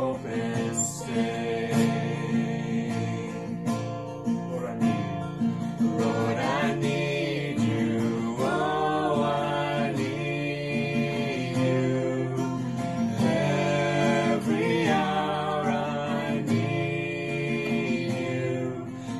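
Acoustic guitar strummed as accompaniment to a worship song, sung by a man and two women.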